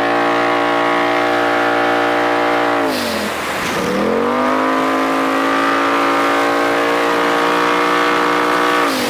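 2018 Polaris RZR Turbo S's turbocharged twin-cylinder engine with a straight-piped race exhaust, heard from the cab under steady throttle at trail speed. About three seconds in the pitch drops sharply with a brief hiss as the throttle lifts, then climbs back and holds steady. It drops again near the end.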